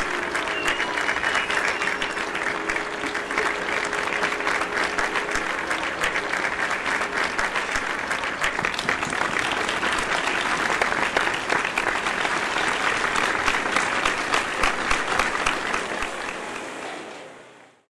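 Large crowd applauding, a dense steady clatter of clapping. A faint steady low tone sits under it for the first five seconds or so. The applause fades out near the end.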